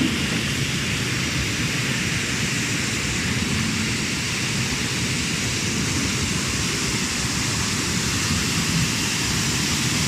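Bubble-type industrial tomato washing machine running: a steady rushing of churning, bubbling water and spray with the drone of the machine underneath.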